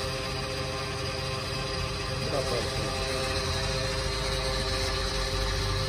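Motorcycle engine running steadily under way, a constant droning hum at an even pitch.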